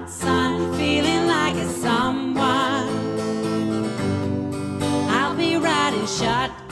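Acoustic cover song playing: strummed acoustic guitar with voices holding wavering sung notes.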